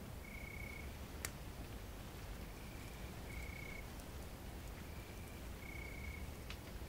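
Night camping ambience: crickets giving short trills at one steady pitch, about one every second or so, alternating louder and fainter, over a low steady rumble. A campfire gives a sharp crackling pop about a second in and another near the end.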